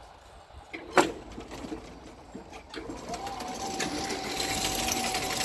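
Level-crossing barrier drive lifting the boom after the train has passed: a sharp click about a second in, then a steady electric-motor whine from about three seconds in as the barrier rises.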